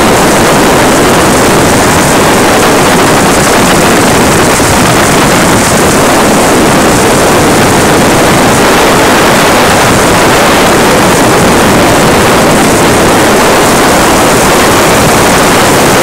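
Waterfall pouring off a spillway close to the microphone: a loud, steady rush of falling water that never lets up.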